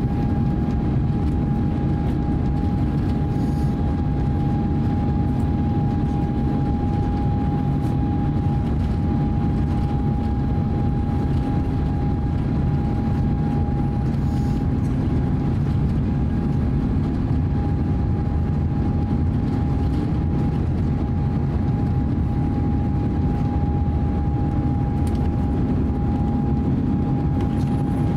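Cabin noise of an Airbus A350-900 taxiing: its Rolls-Royce Trent XWB engines run at low taxi power as a steady rumble, with a steady whine held through it.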